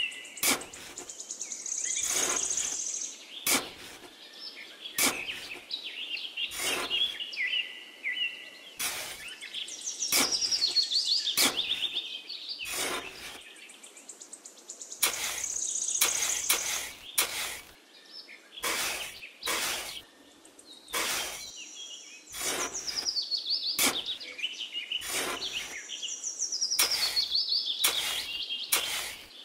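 Birds chirping and tweeting steadily, with repeated short scrapes of a small shovel digging into damp sand about once a second.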